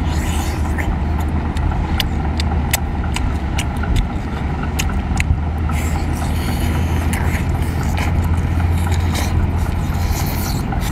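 Close-up eating sounds: biting, sucking and chewing shellfish meat, with many short wet mouth clicks and slurps. Under them runs a steady low engine hum.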